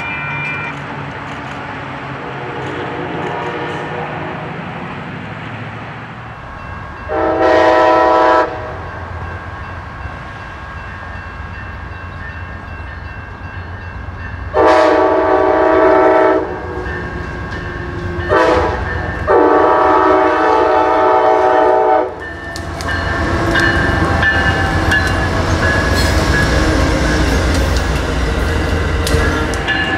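Diesel-electric passenger locomotive horn sounding the grade-crossing signal, two long blasts, a short one and a long one. The train then passes with a steady rumble and the wheels clicking over the rails.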